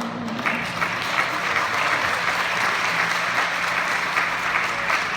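The last held note of the music dies away and a congregation breaks into steady applause about half a second in.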